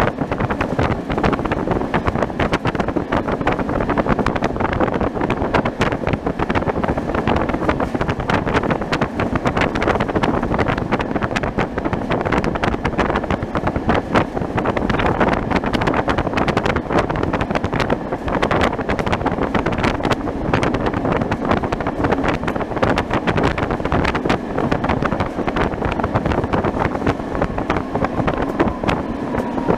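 Old tram running at speed through a tunnel: a steady rumble of wheels on rails with constant rattling and clatter, and some wind on the microphone.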